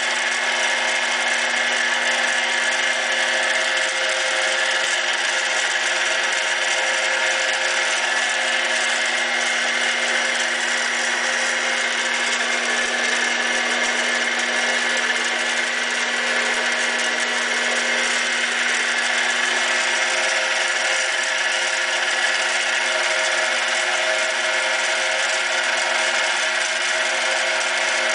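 7x12 mini lathe running steadily, its motor and gears giving an unchanging whine, while a drill bit held in the chuck bores a small hole into an aluminium plate.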